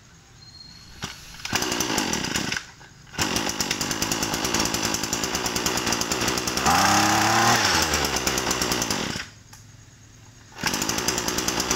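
Tanaka/Hitachi TCG23ECP 23cc two-stroke brush cutter engine being pull-started. It fires briefly about a second and a half in and cuts out, then starts and runs steadily, revved up and back down once in the middle. It stops about nine seconds in and is started again near the end.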